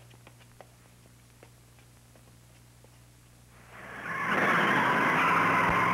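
A few faint ticks over a low hum, then about three and a half seconds in the noise of cars driving on a dirt road swells in quickly and holds steady.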